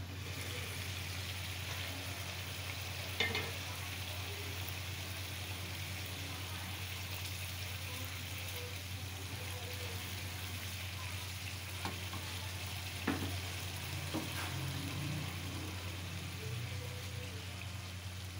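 Potato curry simmering in a frying pan, the gravy bubbling and sizzling steadily over a low hum. A few sharp knocks of utensils against the pan break in, the loudest about three seconds in and the others near the middle.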